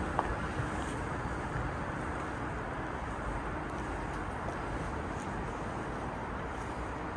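Steady rumble of a subway train running, heard from inside the carriage.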